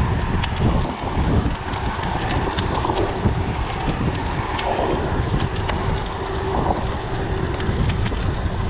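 Wind buffeting a GoPro Hero7 Black's microphone on a moving mountain bike, a steady rushing and rumbling noise, with faint clicks and rattles from the bike.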